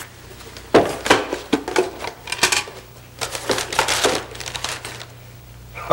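Several bursts of rapid clicking and clattering from small hard objects being handled and rummaged through, loosely in three runs.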